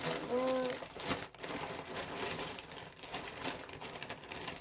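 Packaging crinkling and rustling as hands rummage through a large bag of squishy toys.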